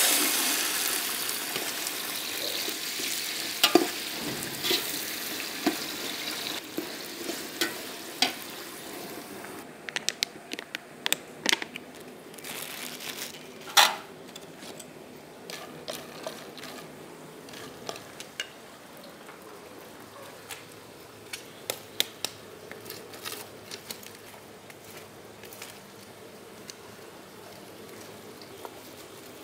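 Food dropped into hot oil in a pan, with a sudden loud sizzle that slowly dies down over about ten seconds. Through it and after it, a utensil clinks and scrapes against the pan as the food is stirred, several sharp knocks at first and then only now and then.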